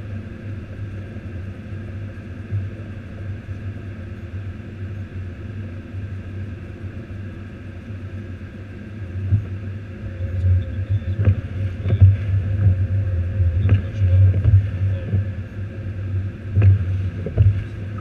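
Low, steady rumble of a vehicle driving through deep snow, heard from inside the cab. About halfway through it grows louder and more uneven, with a few sharp knocks.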